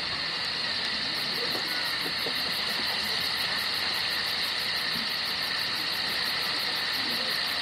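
Steady hiss of open-air stadium ambience, with faint scattered voices from the crowd in the stands.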